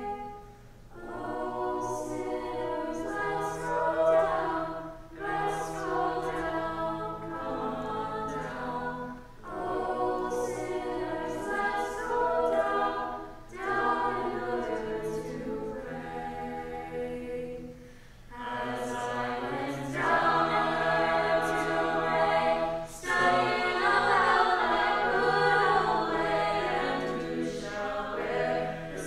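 Small mixed group of young voices singing unaccompanied in parts, in phrases separated by short breaths; the singing grows louder about twenty seconds in.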